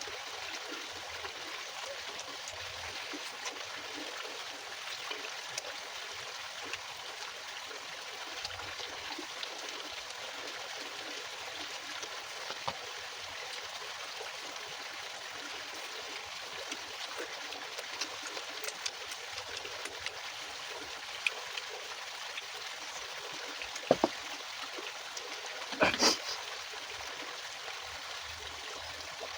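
Steady sizzling of food frying in hot oil in a pan, with fine crackling throughout, and two sharp knocks near the end, like a utensil striking the pan.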